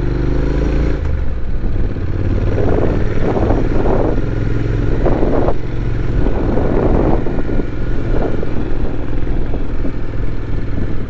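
Honda NC750X's parallel-twin engine running as the motorcycle rides along, its pitch dropping in the first second as it slows. Wind rushes over the microphone, swelling and fading several times.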